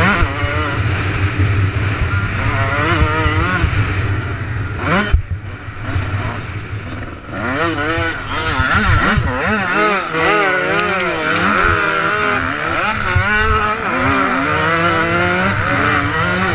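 Motocross bike engine heard close up from a camera mounted on the bike, its pitch rising and falling continually as the rider works the throttle. The throttle closes briefly about five seconds in, then the engine pulls hard again.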